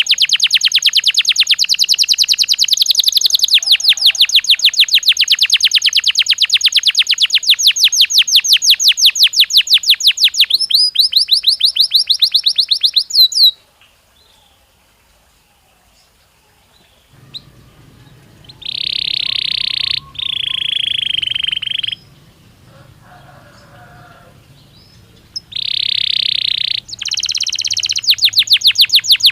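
Belgian canary singing: a long, loud trill of rapidly repeated notes that breaks off about halfway. After a pause of a few seconds come long held whistled notes, and the rapid trill starts again near the end.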